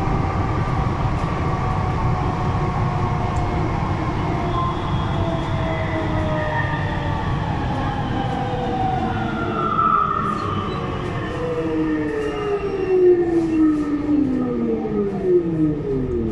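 Siemens VAL 208 rubber-tyred metro train running through a tunnel, heard from on board: a steady low rumble, and from about halfway several whining tones falling steadily in pitch as the train slows.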